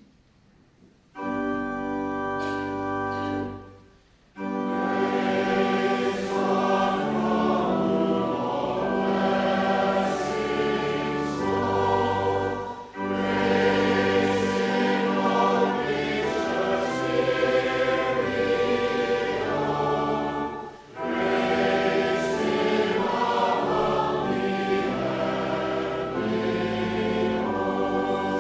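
Choir singing with organ accompaniment, in long held phrases with short breaks between them. The music starts about a second in.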